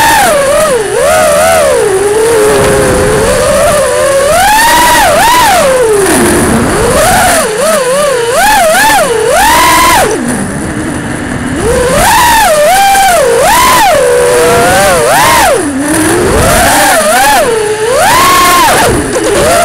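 Racing quadcopter's brushless motors and propellers whining through the onboard camera's microphone, the pitch rising and falling constantly with the throttle. The whine drops out briefly about ten seconds in, then picks up again.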